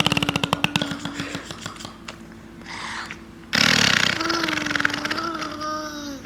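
A toddler blowing raspberries, making fart noises with the lips: a buzzing lip trill with a hummed tone. The first runs in from the start and dies out about a second and a half in; a second one starts about three and a half seconds in and lasts nearly three seconds.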